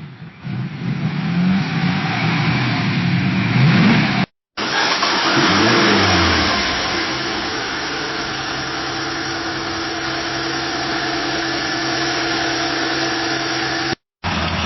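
Car engine revving, its pitch rising and falling, then cutting off. A second car engine starts about four and a half seconds in, rises briefly and settles into a steady idle. A third engine sound begins just before the end.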